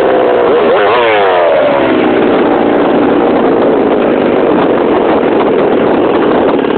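Poulan 3400 two-stroke chainsaw engine, blipped up twice in the first two seconds and then running at a steady lower speed. It is running rich, its carburettor needing more tuning.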